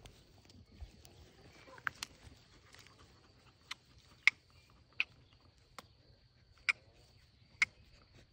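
Field ambience: a faint, steady, high insect drone, with about eight sharp, very short chirps or clicks at irregular intervals, the loudest about four seconds in.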